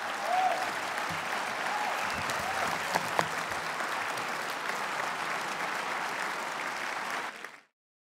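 Audience applauding steadily at the end of a lecture, cut off abruptly near the end.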